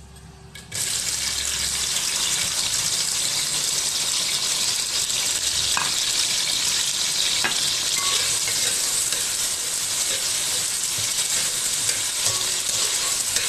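Sliced onions dropped into hot oil, bursting into a loud sizzle less than a second in and then frying with a steady hiss.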